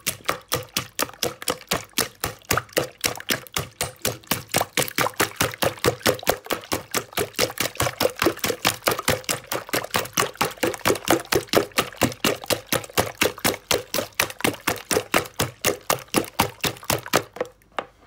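Whisk beating raw eggs with salt in a bowl: a quick, even rhythm of wet strokes, about four to five a second, stopping shortly before the end.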